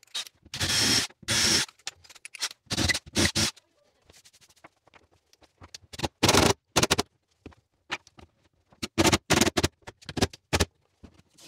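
Makita cordless drill-driver running in short bursts, about ten of them in pairs and small groups, driving screws through plastic toilet-pan brackets into the wooden floor.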